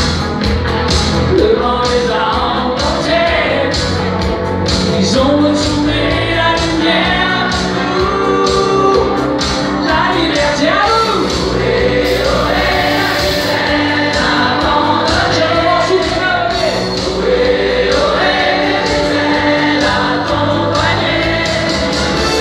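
Live pop-rock band playing at full volume: electric bass and a steady drum beat under sung vocals carrying the melody.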